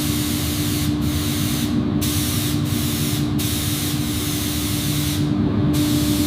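Spray gun hissing steadily over a constant low hum, as paint is sprayed. The top of the hiss thins out briefly a few times.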